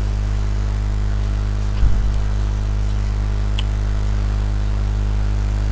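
Steady low hum with evenly spaced overtones, unchanging throughout, with one soft low thump about two seconds in.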